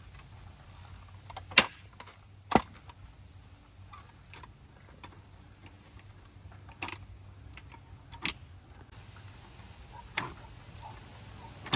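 Post-hole digger being worked into the soil beside a fence post: a handful of sharp knocks and clanks at irregular intervals, the two loudest close together about two seconds in.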